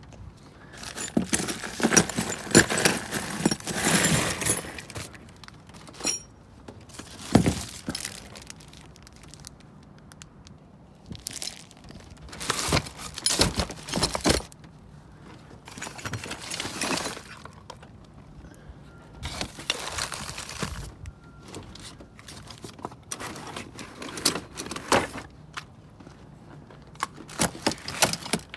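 Loose metal door hardware clattering and jangling as it is picked over and tossed into a box, in repeated bursts with short pauses between them.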